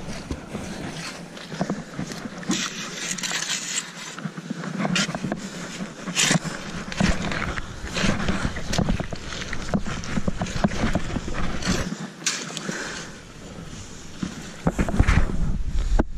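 Shovel cutting and scraping through wet mud and grit on a tidal mudflat, in irregular strokes, a little louder near the end.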